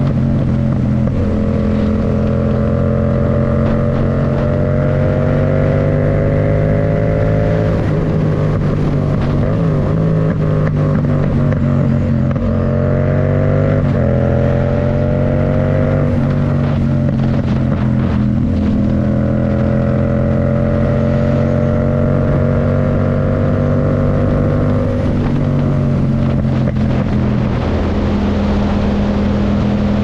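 Yamaha MT-07's parallel-twin engine running through an aftermarket MIVV Delta Race exhaust at high road speed in fifth gear. Its pitch climbs slowly under throttle and drops back several times as the throttle is eased, over steady wind rush.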